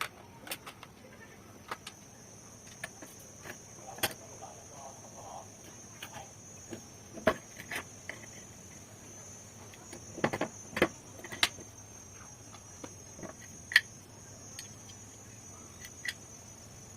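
Scattered sharp clicks and knocks of small metal gun parts being handled during restoration work, a few louder knocks near the middle and about three-quarters in, over a steady high-pitched insect-like chirring.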